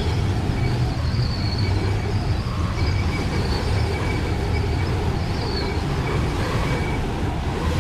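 Steady low vehicle rumble with faint high-pitched whines coming and going over it.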